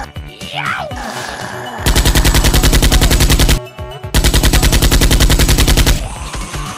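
Two bursts of rapid machine-gun fire, each just under two seconds long, the first starting about two seconds in, with a short break between them.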